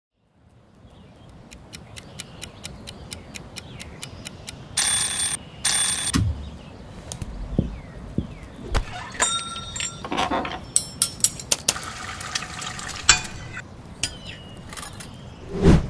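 A run of foley sound effects fading in over a low background: many sharp clicks and ticks, two loud short ringing bursts about five seconds in, then clusters of bell-like ringing tones and a low thump near the end.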